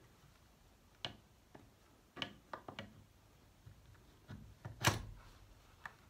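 Wooden holster-stock of a C96 Mauser pistol being slid onto the grip and locked in place: several small clicks and knocks of wood and metal, the loudest near the end.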